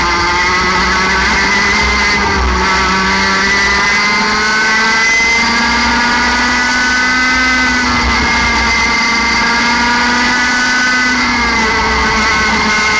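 A 60cc two-stroke kart engine, heard onboard at full throttle. Its pitch rises steadily over the first five seconds as it accelerates out of a corner, then holds a high, steady note near 14,000 rpm. It eases down slightly near the end as the kart lifts off for the next corner.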